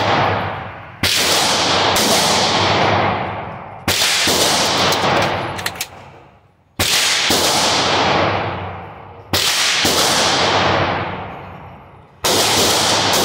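Five single pistol shots, about two and a half to three seconds apart, each followed by a long echoing decay in the indoor range.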